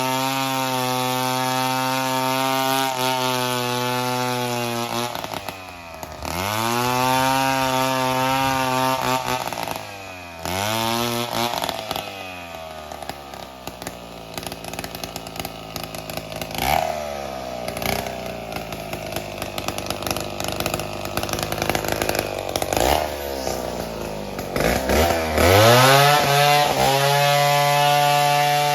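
Chainsaw engine running at high revs, falling back and revving up again twice. It then runs low and uneven for a long stretch with scattered knocks, and revs back up to high speed near the end.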